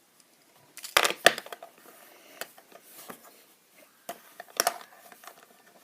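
Plastic Lego bricks clicking and knocking as pieces are handled and pressed into place: a cluster of sharp clicks about a second in, scattered light ticks, then another cluster a little after four seconds.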